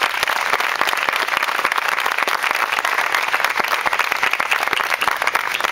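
Audience and people on stage applauding: many hands clapping steadily, beginning just before and stopping about at the end.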